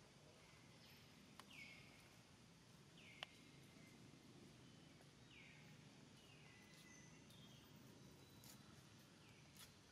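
Faint forest background with a bird repeating a short falling whistle every second or two. Two sharp clicks stand out, about one and a half and three seconds in.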